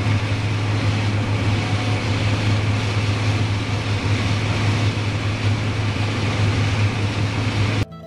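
Combine harvester running steadily while harvesting corn: a constant low engine hum under a broad mechanical rush, cutting off abruptly just before the end.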